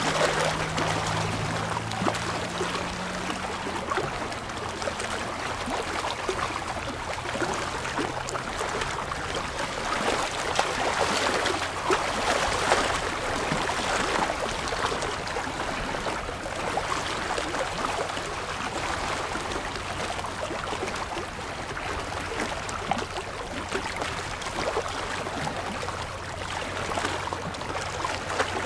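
Small waves lapping and splashing against shoreline rocks, swelling and easing in irregular surges.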